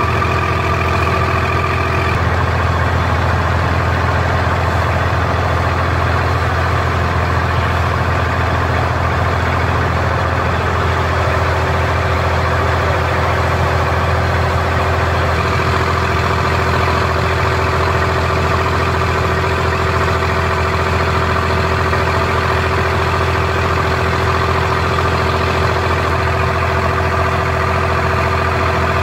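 An abra's inboard diesel engine running steadily while the water taxi is under way, heard from on board as a loud, even low drone. A higher whine in the engine noise drops out about two seconds in.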